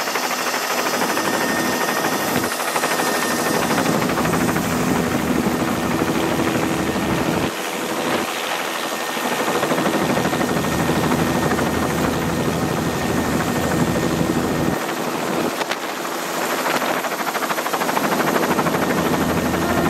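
Helicopter rotor and engine noise heard from the open, doors-off cabin as it hovers just above the landing pad, a steady loud rush with a few steady tones running through it.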